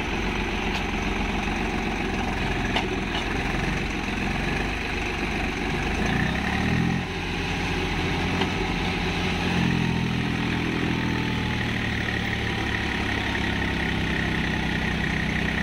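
Swaraj tractor's diesel engine working under load, hauling a loaded sand trailer through wet sand. The revs climb briefly about six seconds in and drop off, then the engine pulls harder and steadier from about ten seconds on.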